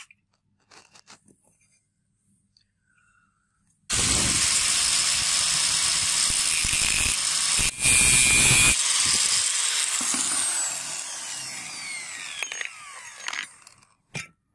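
Angle grinder with a cutting disc slicing through a steel rod clamped in a bench vise. The cut starts suddenly about four seconds in and runs loud for about five seconds. Then the grinder's whine falls steadily in pitch and fades as the disc spins down, with light handling clicks before the cut and one near the end.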